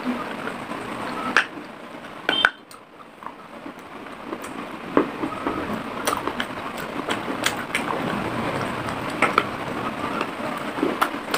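Baked clay pot pieces being bitten and chewed right at a clip-on microphone: irregular sharp crunches and crackles, with a quieter spell about three seconds in.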